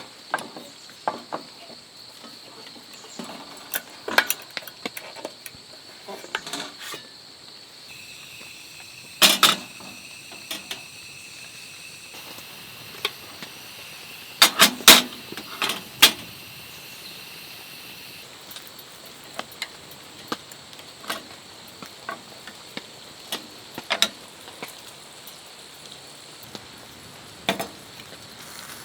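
Insects, crickets by their steady high chirring, sounding continuously under scattered taps and drips, with a few louder knocks about nine seconds in and again around fifteen seconds in.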